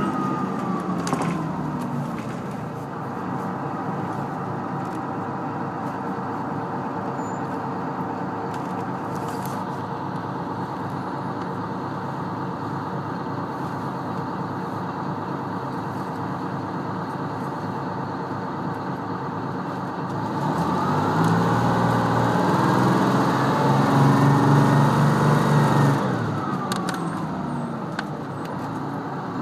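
GM New Look transit bus heard from inside, its diesel engine and transmission whine falling in pitch as the bus slows, then running steadily. About two-thirds of the way through the engine revs up louder with a rising whine as the bus accelerates, and it drops back a few seconds before the end.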